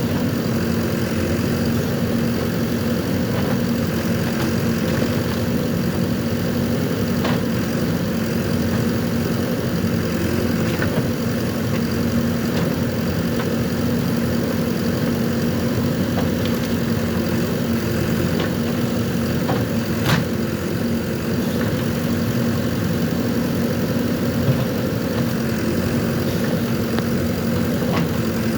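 JCB 3DX backhoe loader's diesel engine running steadily, with a few brief sharp knocks now and then.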